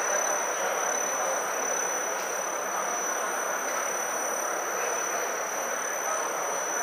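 Electric floor grinding machine running on a marble floor, polishing the stone with its rotating heads: a steady grinding noise with a steady high whine above it.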